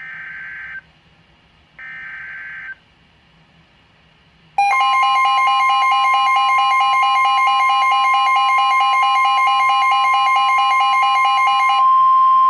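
NOAA Weather Radio emergency alert: two short bursts of warbling digital header tones, then about four and a half seconds in a loud, steady alarm tone with a second, lower tone layered on it. The lower tone drops out near the end. This sequence marks the start of a tornado warning broadcast.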